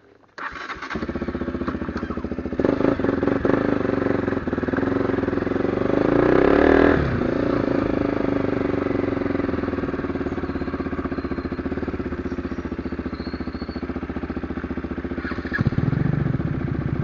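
KTM single-cylinder motorcycle engine running under way, revving up about six seconds in and dropping back sharply about a second later, then running steadily again with a brief louder surge near the end.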